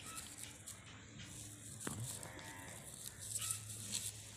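A single short moo from cattle, about two seconds in.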